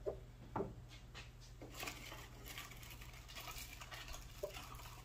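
A few faint taps and clicks from hands handling parts in a pickup's engine bay, over a steady low hum.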